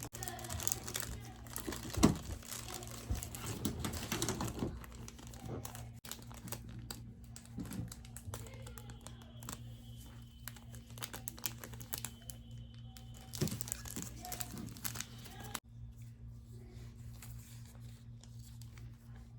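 Packaging crinkling and rustling as it is handled, with scattered small knocks and one sharp knock about two seconds in, over a steady low hum. The handling stops after about fifteen seconds, leaving only the hum.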